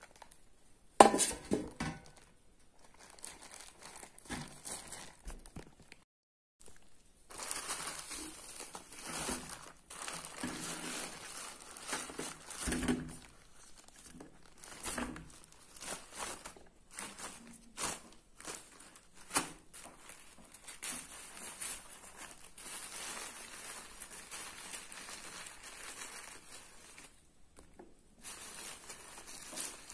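Thin plastic carrier bag crinkling and rustling as crushed green mango is shaken and handled out of it onto a steel plate, with one sharp knock about a second in.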